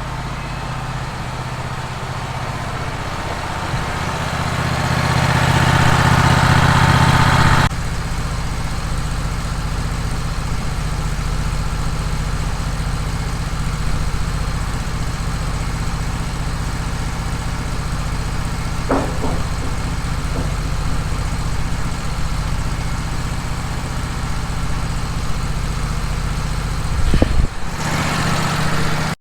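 Wood-Mizer sawmill's engine running steadily. It swells louder and brighter over the first several seconds, then drops back abruptly about seven and a half seconds in, with a few faint knocks later on.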